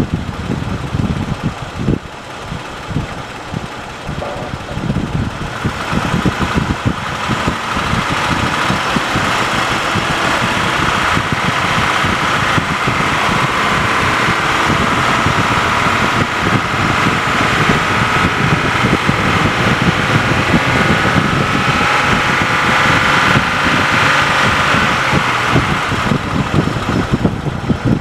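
Warmed-up Jeep engine running, then held at a raised, steady speed from about five seconds in, bringing up a high-pitched mechanical noise over the engine; it drops back near the end. The noise is quieter at idle and grows above about 2500 rpm, which the owner says could be the valvetrain.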